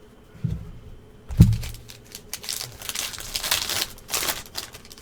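Trading-card pack wrapper being torn open and crinkled, a run of crackling rustles in the second half. Two dull thumps come earlier, in the first second and a half, from cards being handled on the table.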